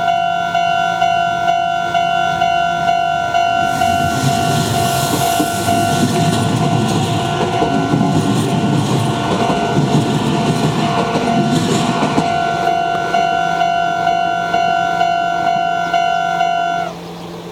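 Level crossing warning bell ringing in a steady, quickly repeating ding. A Meitetsu 300 series electric train passes from about four seconds in to about twelve seconds in, with rushing and clattering wheel noise. The bell stops shortly before the end.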